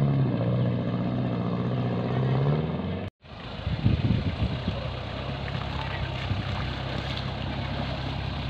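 Off-road 4x4's engine revving, its pitch rising and falling. After a sudden cut it runs steadily at a low idle, with a few knocks soon after.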